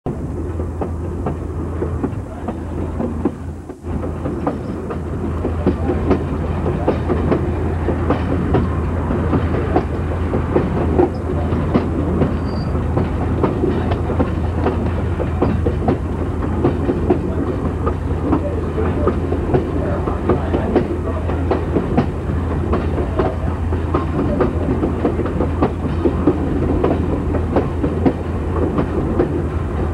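Passenger car of a steam-hauled train rolling over jointed track: a steady rumble with a rapid, continuous clickety-clack of the wheels over the rail joints.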